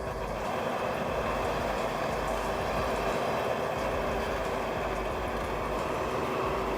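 Bulldozer's diesel engine running steadily under load.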